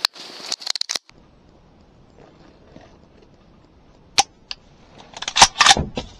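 Sharp dry clicks of a hunting rifle misfiring, the firing pin falling without the cartridge going off, which the shooter puts down to a firing pin that needs cleaning. Near the end comes a louder cluster of knocks and rustling.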